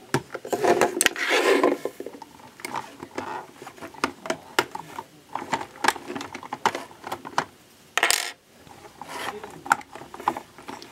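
Hands handling a Lego Technic hydraulic arm's plastic parts: irregular clicks and knocks of the valve levers, beams and hose fittings on the reservoir box, with brief rustling swishes about a second in and again near eight seconds.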